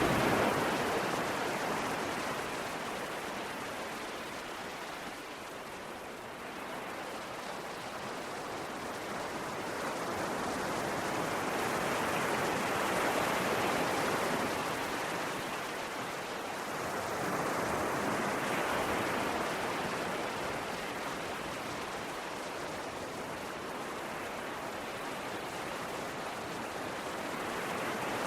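Sea waves breaking and washing up the shore, a steady rush of surf that swells and ebbs in slow surges several seconds apart.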